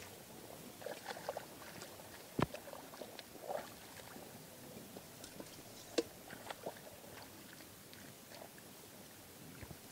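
Hands groping and splashing in shallow muddy water, with scattered small sloshes and splashes, and two sharper knocks, one about two and a half seconds in and one about six seconds in.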